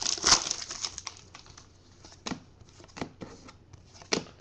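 Foil trading-card pack being torn open and its cards handled by hand: a couple of loud crinkly snaps of the wrapper at the start, then a few scattered light clicks of card stock.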